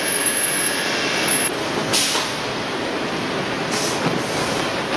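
Core veneer composer and plywood-line machinery running steadily, with a high thin squeal through the first second and a half and two short bursts of hiss, about two seconds and about four seconds in.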